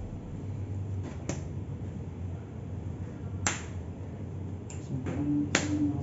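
Trading cards being tapped and laid down on a playmat: a few sharp clicks, the loudest about three and a half and five and a half seconds in.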